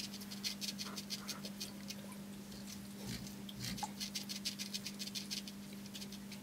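Dennerle Nano Alginator magnet cleaner scraping hard coralline red algae crusts off aquarium glass: rapid, irregular scratching clicks with a short lull partway through. A steady low hum sits underneath.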